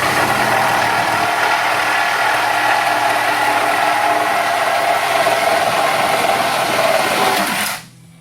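An electric power tool running at full speed, steady and loud for nearly eight seconds, then cutting off suddenly.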